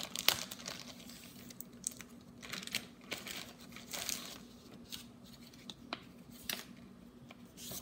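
Packaging crinkling and rustling as it is handled and pulled open, with irregular crackles and a few tearing rustles.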